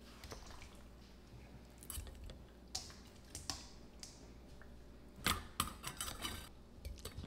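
Soft, scattered clicks and taps of raw chicken pieces being dropped and pressed by hand through a stainless steel canning funnel into a glass mason jar, with a louder cluster of clatter about five seconds in.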